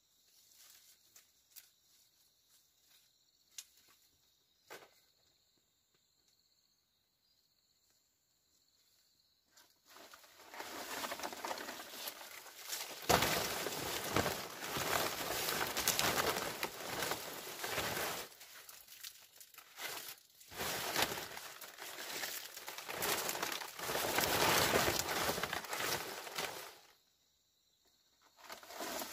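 Insects drone faintly and steadily at first. About ten seconds in, a loud, irregular rustling and crackling of dry plant material being handled begins, and it stops shortly before the end.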